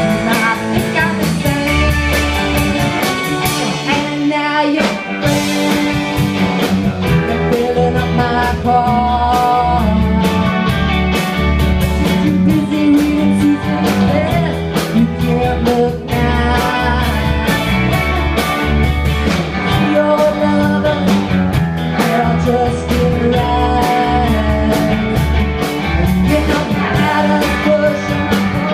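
Garage-punk band playing live: electric guitar, bass and drum kit driving a steady rock beat, with the low end dropping out briefly about four seconds in.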